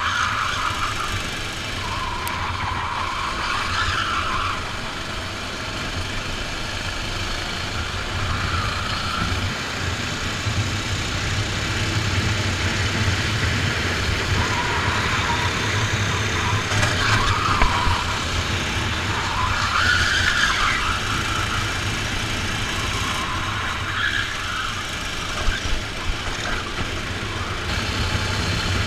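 Rental kart engine heard from the kart itself, its revs rising and falling again and again as it brakes and accelerates through corners, over a steady low rumble.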